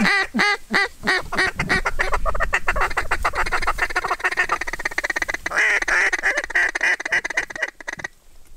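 Hand-blown duck call working ducks: a run of loud quacks, then a fast rolling chatter, then more rapid quacking that cuts off suddenly near the end.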